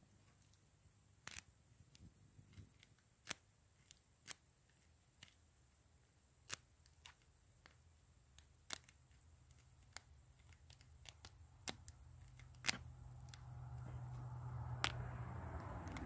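Irregular small metallic clicks and ticks of a piece of wire picking the pin-tumbler keyway of a Master Lock No. 3 laminated padlock, some clicks sharper than others. A low steady hum swells up over the last few seconds.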